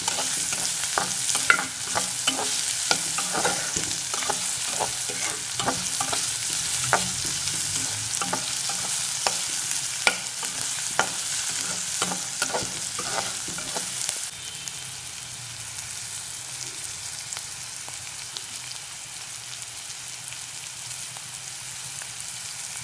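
Chopped vegetables sizzling in hot oil in a pan while a spatula stirs them, with frequent scrapes and knocks against the pan. About fourteen seconds in the stirring stops and the sizzle goes on more quietly.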